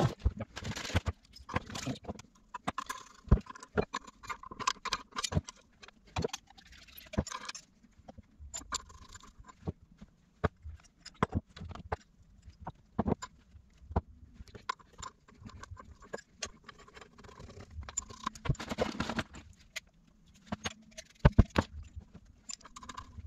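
Brass compression fittings and isolation valves being fitted onto copper pipe: irregular sharp metallic clicks and clinks as the fittings are handled and a pair of grips knocks against the nuts.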